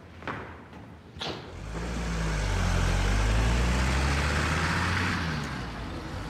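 A van driving past close by, its engine and tyre noise swelling to a peak about halfway through and then fading away.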